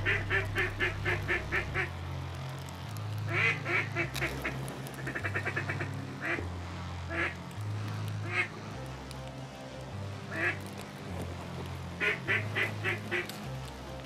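Duck call blown in series of quacks, with a fast chattering run about five seconds in and another quacking series near the end, calling to ducks circling overhead. Background music with a low bass line plays underneath.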